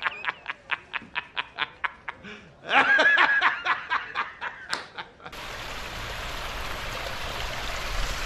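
A person laughing in rapid pulses, with a louder stretch about three seconds in. After about five seconds it cuts off sharply to the steady rush of a mountain stream.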